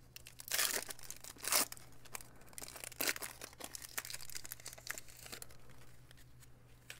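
Cardboard trading cards being flipped through and slid against one another. There are short papery scrapes, the loudest about half a second, a second and a half and three seconds in.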